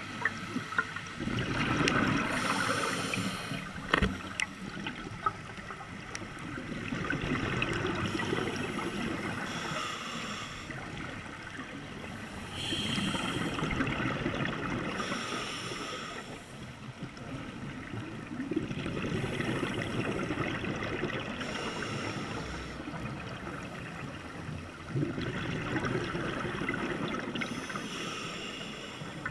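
Scuba diver breathing through a regulator underwater: slow breaths about every five to six seconds, a hiss of inhaled air alternating with a gurgle of exhaled bubbles. A single short knock about four seconds in.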